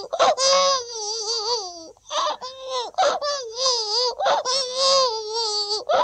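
A man's vocal imitation of a baby crying: a string of wavering, wailing infant cries with short catches of breath between them.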